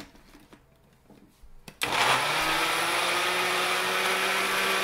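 Countertop blender: a light click as the jar is set on the base, then about two seconds in the motor starts and runs steadily, blending tomatoes, onion, garlic and habanero pepper into a sauce.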